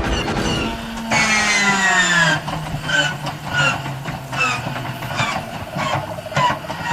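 Sci-fi walker laser blasts, made from the squeak of an old biplane motor kicking in mechanically after being cranked to high RPM. A long falling sweep about a second in, then a string of short, falling, squeaky shots about twice a second.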